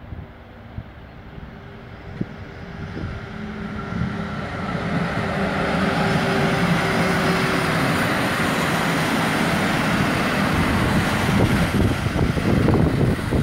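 Pesa Gama SU160 diesel locomotive hauling a passenger train, its engine growing louder as it approaches and passes close by. Near the end the coaches roll past with their wheels clacking over the rail joints.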